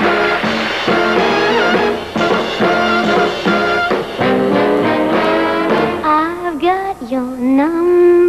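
Brassy big-band show music for a dance number. About six seconds in the full band thins out and a sliding, wavering melody line takes over.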